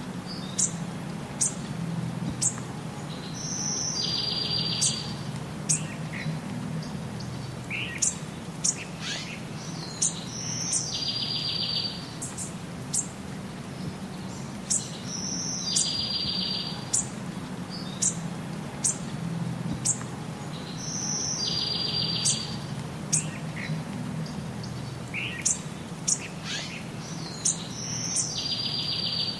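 Birds chirping and calling, short sharp high chirps with a buzzy trill that recurs about every six seconds, over a steady low hum.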